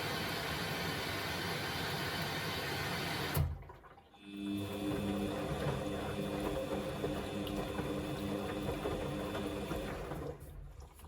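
Samsung washing machine on a wash cycle: a steady rush of water cuts off with a click a little over three seconds in. After a brief pause a pump hums steadily with water running through it for about six seconds, then stops.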